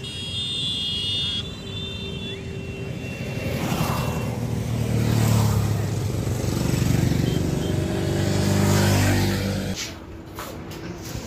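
Motorcycles passing close by on a road, their engines swelling and fading as each goes past, with a vehicle horn sounding briefly at the start. The engine sound cuts off suddenly near the end.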